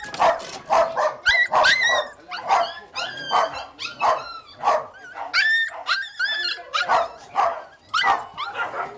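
Several dogs barking and yelping over one another, short barks coming about two a second, some with a high, sliding yip.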